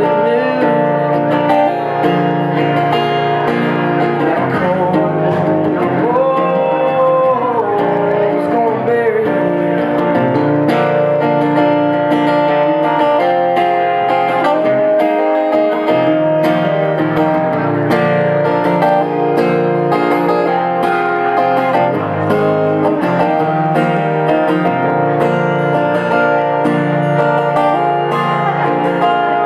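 Solo acoustic guitar strumming steadily, played live.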